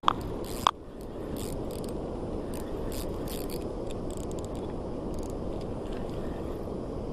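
Fishing reel being cranked, with irregular light clicking from its gears, over the steady rush of water pouring over a canal spillway. Two sharp clicks come right at the start.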